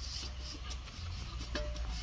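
Large aluminium cooking pot being handled while cooking oil is rubbed onto its outside by hand, with a couple of light knocks from the pot about one and a half seconds in. Faint music and a low rumble run underneath.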